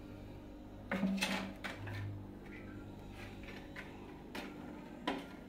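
Irregular light knocks and bumps, the loudest about a second in and another near the end, from a kitten playing at a wooden chair and tugging a cloth draped over it.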